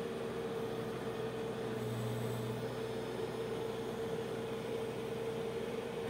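Case 570ST backhoe loader running steadily while its backhoe arm works: an even engine drone with a constant mid-pitched whine over it. The low engine note swells briefly about two seconds in.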